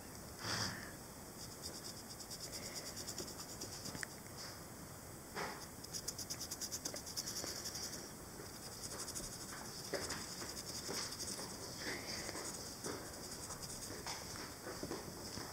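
A felt-tip Sharpie permanent marker scribbling on a small painted stone, a scratchy rubbing in runs of quick back-and-forth strokes, with a few light knocks as the rock is handled.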